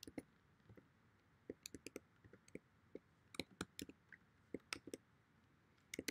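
Keystrokes on a computer keyboard: irregular, sharp clicks, some in quick runs of three or four.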